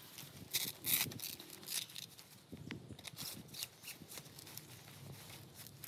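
Nylon tent fabric and mesh rustling and crinkling as the tent is handled and a pole is fed into its sleeve, with a few sharper scratchy bursts about a second in.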